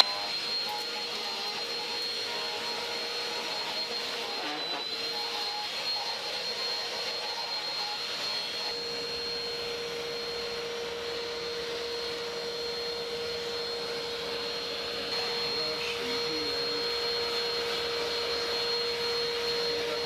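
Eureka Power Speed bagless upright vacuum cleaner running steadily at full speed, its motor giving a high, even whine over a lower hum and the rush of air. It gets a little louder about fifteen seconds in.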